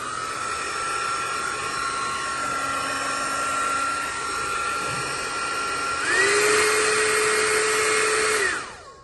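iTeraCare Classic hot air blower running: a steady rush of air with a whistling motor whine. About six seconds in the whine steps up to a higher pitch and gets louder, then the pitch falls and the sound dies away near the end as the blower winds down.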